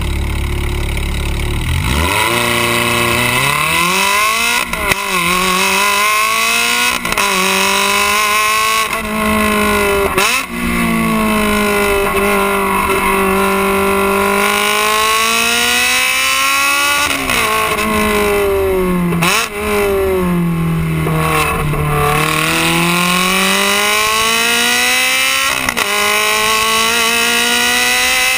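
Ferrari 360 Challenge Stradale's V8 exhaust, heard right at the twin tailpipes: it runs steadily, then pulls away about two seconds in and climbs through the gears, the pitch dropping sharply at each quick shift. Between the shifts the revs sag and build again slowly as the car eases off and pulls out of corners.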